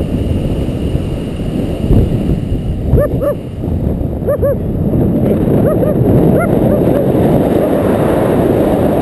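A dog barking below, in short pairs of barks about three and four and a half seconds in and several more from about six seconds on, over steady wind rushing on the microphone of a paraglider in flight.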